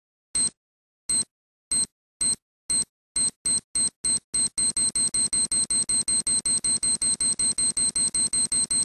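Electronic alarm beeping, one high-pitched tone: single beeps slow at first, then coming faster until they run at about four a second.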